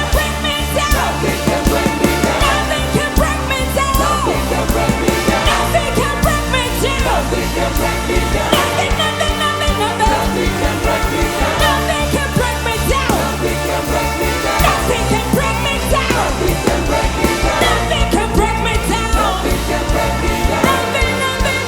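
Loud live music with singing over a steady driving beat and bass, in the style of church praise and worship.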